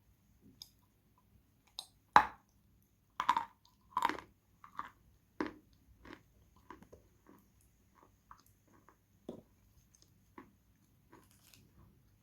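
Close-miked bites and crunching chews of Khrapovsky eating chalk. A sharp bite cracks about two seconds in, three or four loud crunches follow over the next few seconds, and then softer chewing.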